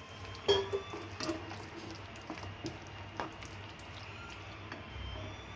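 A spatula stirring a thin, watery sauce in a kadai: wet sloshing of liquid with a few knocks of the spatula against the pan, the loudest about half a second in.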